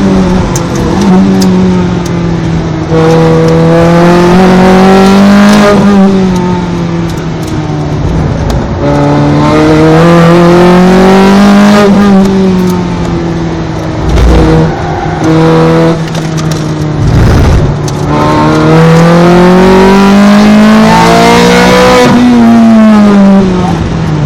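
Ferrari 430 Scuderia's 510 cv V8 at racing speed, heard on board: the engine pitch climbs in three long full-throttle pulls, each ending in a sharp drop, with lower, falling revs between them as the car slows for corners.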